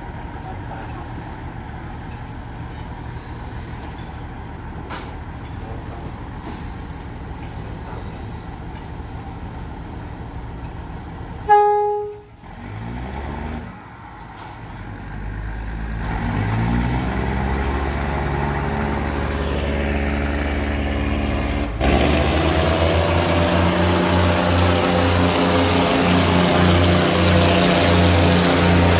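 Diesel train engine idling, then one short, loud blast of the train's horn about eleven seconds in. The engine then revs up in rising steps and runs louder as the train starts to pull away.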